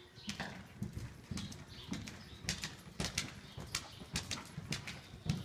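Hoofbeats of a horse cantering on arena footing: a steady run of sharp knocks, several a second, in an uneven beat.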